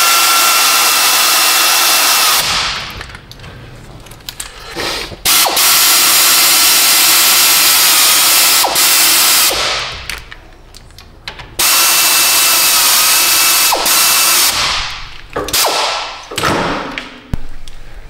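Power ratchet running in the hub bearing's mounting bolts: three long runs of a few seconds each with a steady whine that dips slightly as each bolt draws down, then a few short bursts near the end.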